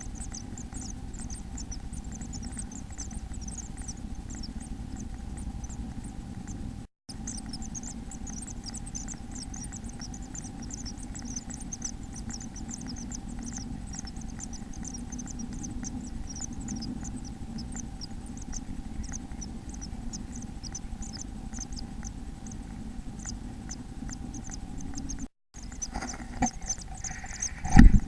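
Nestlings in a nest box giving a high, rapid twittering, over a steady low hum. Near the end comes a sharp knock with scrabbling against the box.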